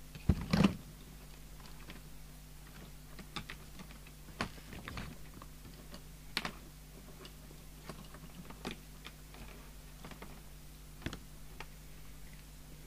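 Hands handling test leads and plugs around an open CB radio on a bench: two loud knocks about half a second in, then scattered light clicks and taps, over a steady low electrical hum.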